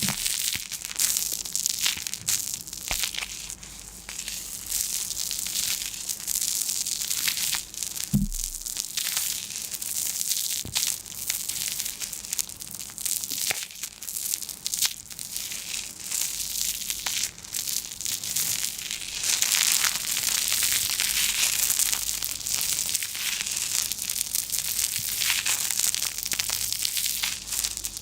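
Continuous crisp crackling and crinkling of brittle material being crushed and crumpled, a dense run of small clicks that grows fuller about two thirds of the way through.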